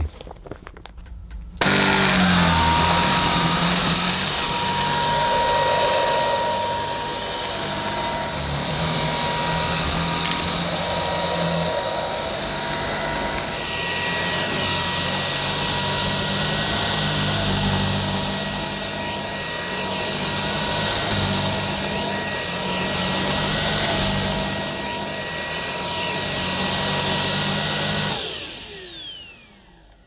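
Hoover H Free 500 cordless stick vacuum running over carpet: a steady motor whine over the brush-roll noise, starting abruptly about a second and a half in. The whine steps up in pitch about halfway through, then winds down with a falling pitch near the end.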